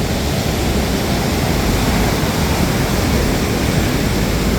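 Ocean surf breaking on the beach: a loud, steady rushing noise.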